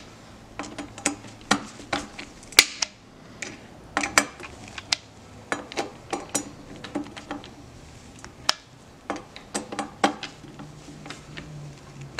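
Wheeler FAT Wrench torque driver set to 20 inch-pounds turning the hex screws of a rifle handguard end plate: a string of irregular, sharp metallic clicks and ticks, about two or three a second, as the bit works the screws and the driver moves between them.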